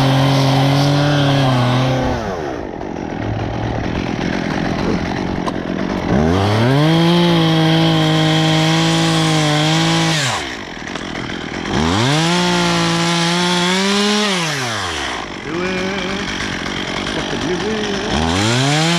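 Gas chainsaw revved to full throttle and held for about three to four seconds at a time, then let back down to idle, as it cuts wood. This happens four times, the last rev starting near the end.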